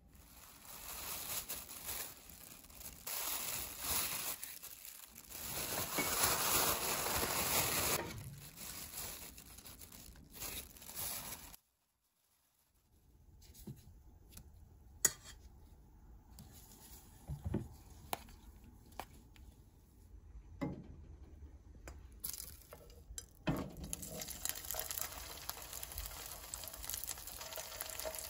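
A plastic bag crinkling and rustling as floured oysters are shaken inside it, loudest for the first eight seconds or so. After a brief silence come a few sharp clicks. Over the last six seconds there is the steady sizzle of egg-battered oysters frying in a non-stick pan.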